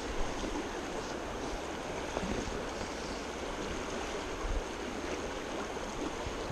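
River rapids: shallow water rushing steadily over rocks.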